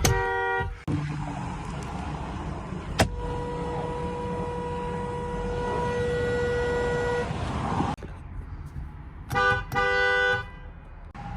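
Infiniti car horn honked with a two-note sound: a short toot right at the start, then two short toots close together near the end. Between them, a steady noisy rumble of the car and road.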